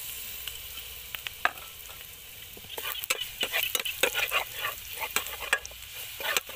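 Chopped garlic and palm sugar sizzling in hot oil in a non-stick frying pan, a steady hiss at first. From about three seconds in, a metal spatula stirs the pan with quick scraping clicks, and the sizzle grows louder.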